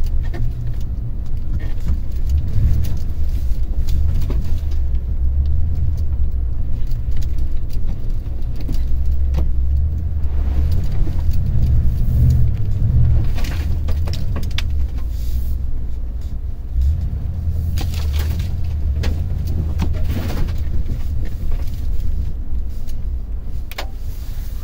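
Toyota Tundra pickup driving over a rough off-road trail: a steady low rumble of engine and tyres, with scattered brief rattles and knocks as the truck bounces.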